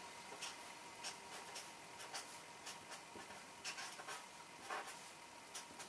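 Felt-tip marker writing letters on paper: faint, short scratchy strokes in an irregular run.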